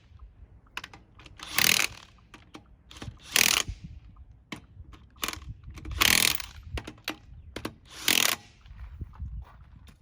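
Impact wrench tightening a wheel's lug nuts in four short bursts of about half a second each, with light clicks and knocks between the bursts.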